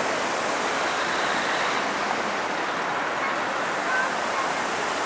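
The River Dee rushing over rocky rapids: a steady roar of white water.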